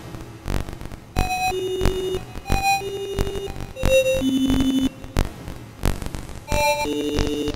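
Background music: a sparse electronic track of short held notes at changing pitches, one every half second to a second, with sharp clicks between them.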